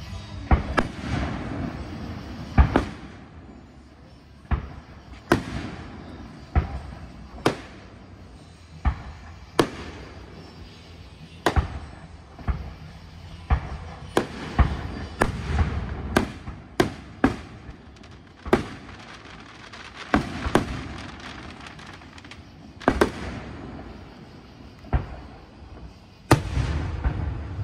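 Aerial firework shells bursting in an irregular run of sharp bangs, roughly one every second or so, over a low background rumble.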